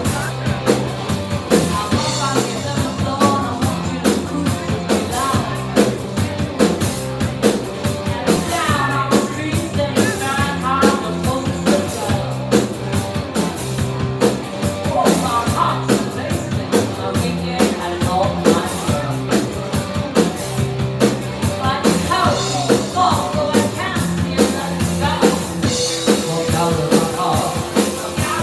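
Live rock band playing: a woman singing over electric guitar, bass guitar and a drum kit keeping a steady beat.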